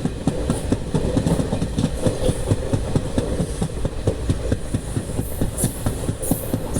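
Train running on the rails: wheels clattering over the track in a rapid, uneven rhythm over a steady low rumble, with a few short high squeaks near the end.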